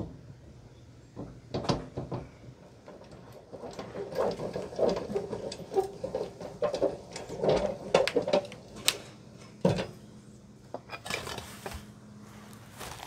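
Metal crank handle turning a camper's corner stabilizer jack to raise it: a run of rhythmic metallic clicking and scraping, with a single sharp clank near the middle and a few more clicks near the end.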